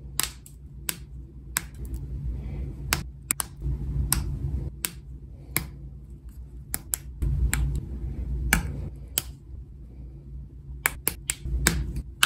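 Close handling of a small metal enamel pin: sharp, irregular clicks and taps of metal and fingertips against it, several bunched together near the end, over a low rubbing noise from fingers moving on it.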